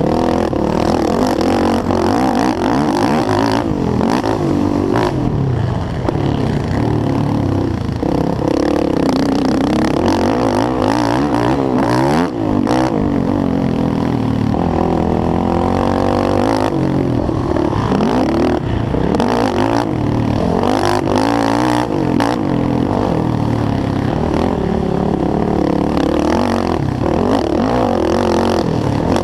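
Yamaha YFZ450R quad's single-cylinder four-stroke engine racing on a motocross track. It revs up and down in pitch again and again through the gears, with scattered knocks and clatter.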